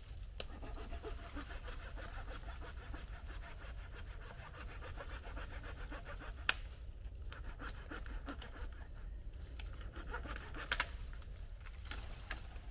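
Hand saw cutting through wood in runs of quick rasping strokes with short pauses, broken by a few sharp knocks. The loudest knock comes about six and a half seconds in.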